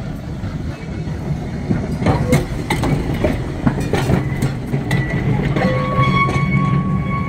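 Double-deck electric tram rolling past on its rails: a steady low rumble, with wheels clicking sharply over the track from about two to four seconds in. A steady high-pitched squeal sets in near the end.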